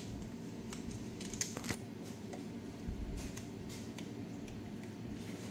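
Scattered light metallic clicks and taps of tools and small engine parts being handled as fuel injectors are fitted by hand, loudest a quick cluster about a second and a half in. A steady low hum underlies them.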